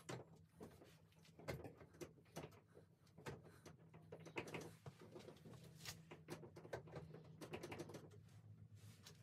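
Faint, irregular small clicks, taps and rustles of someone reaching in through a car's open window and handling things inside, over a faint steady hum.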